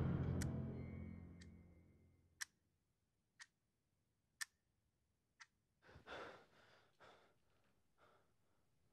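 Eerie film score fading out, then a clock ticking once a second, about six ticks. About six seconds in, a man's sharp, heavy breaths and a gasp as he wakes with a start and sits up.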